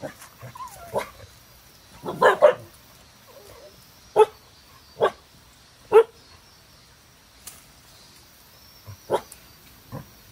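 A dog barking in short, sharp single barks: a quick run of barks about two seconds in, then single barks about a second apart, a pause, and two more near the end.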